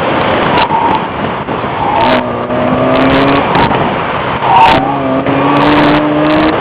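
Chevrolet Cavalier engine pulling hard under acceleration during an autocross run, its pitch climbing steadily, then dropping about four and a half seconds in before climbing again.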